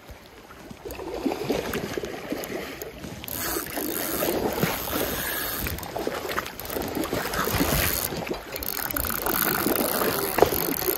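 Shallow river water rushing and splashing around a wading angler, with wind noise on the microphone and short knocks.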